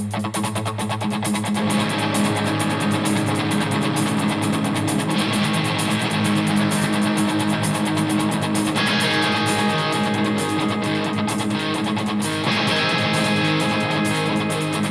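A rock band plays a song's instrumental intro live, led by strummed guitar chords that change every few seconds, with light regular ticking above them.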